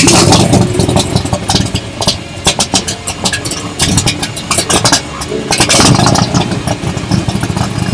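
Loud big-block Chevrolet V8, a warmed-over 502 cubic-inch engine of about 575 horsepower in a replica 1963 Corvette Grand Sport, running and revved in several surges.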